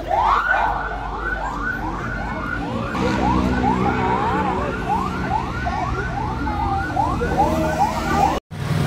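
Fire truck siren sounding in rapid rising yelps, about two a second, with the truck's engine running underneath from about three seconds in. The siren cuts off abruptly near the end.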